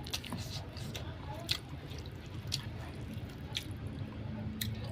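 Wet eating sounds from someone eating rice and curry: a sharp smack or click about once a second over a low steady hum.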